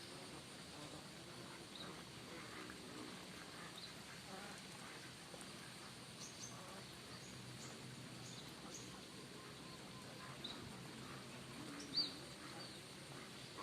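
Faint outdoor ambience: a steady hiss with scattered short, high chirps of birds or insects, and one sharper, louder chirp about twelve seconds in.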